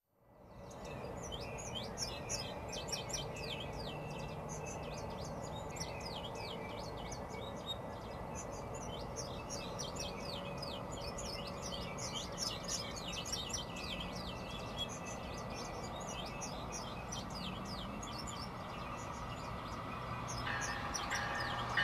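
A flock of small birds chirping busily, many quick short chirps overlapping without a break. Near the end, an approaching electric commuter train starts to be heard as a steady tone that grows louder.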